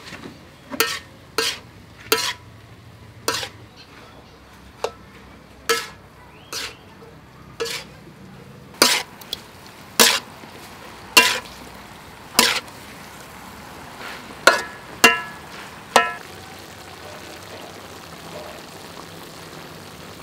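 Metal spatula clanking and scraping against a wok, roughly once a second, while cuttlefish and vegetables are stir-fried over a steady sizzle. The clanks stop about 16 seconds in and the sizzling goes on.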